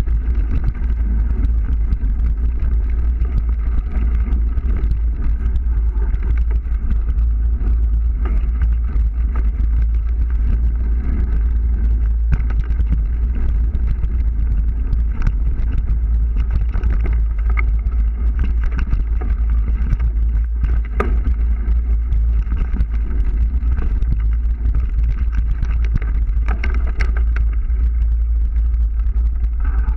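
Steady rumble of wind and ground noise on the microphone of a camera moving fast along a rough forest trail, with a few small knocks.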